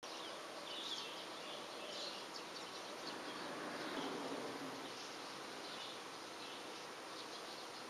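Faint outdoor ambience: a steady low hiss with high chirps repeating every second or so.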